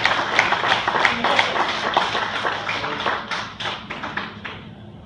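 Audience clapping, a dense run of hand claps that dies away about four and a half seconds in.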